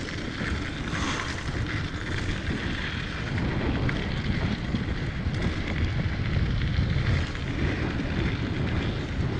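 A Diamondback Mission 2 mountain bike rolling fast down a dirt trail, with wind buffeting the microphone: a steady low rumble with small scattered clicks and rattles throughout.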